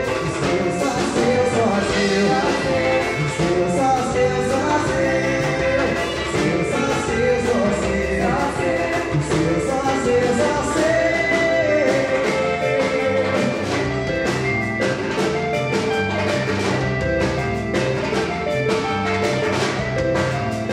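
Live band playing swingueira: a male lead singer over electric bass, drums and percussion, with a steady dance beat.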